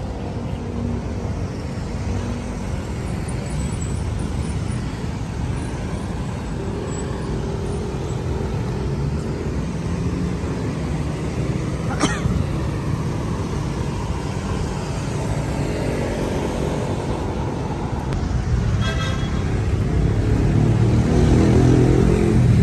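Street traffic: cars running past with a steady low rumble, getting louder near the end as a vehicle passes close. A short car horn toot comes about nineteen seconds in, and a single sharp click about twelve seconds in.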